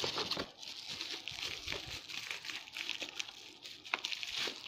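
Plastic bubble wrap crinkling and rustling as a wrapped calculator is handled and lifted from its box, with scattered small crackles and taps.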